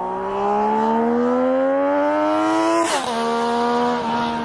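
Single-cylinder engine of a Yamaha Raptor 700 quad accelerating, its pitch rising steadily for about three seconds, then dipping briefly with a click and holding steady.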